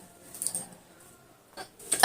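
A woman hiccuping, brought on by repeated sneezing: a short catch about half a second in and another near the end.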